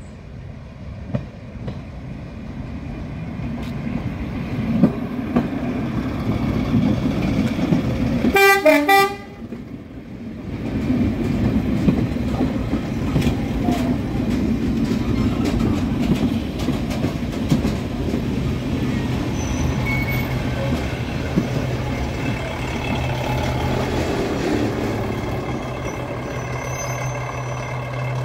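Heritage diesel multiple unit approaching with a growing engine and wheel rumble, then giving a brief, loud horn toot about eight seconds in. After that the unit runs on steadily, and from about halfway a low steady engine hum sets in as it stands at the platform.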